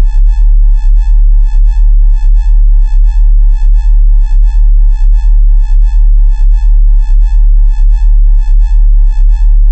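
Loud electronic alarm tone: a deep steady hum under higher tones that pulse evenly about three times a second.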